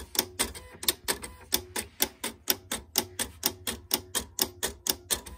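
Silhouette Cameo cutting machine clicking in a quick, even rhythm, about five sharp clicks a second, as it starts a cut job on heat transfer vinyl.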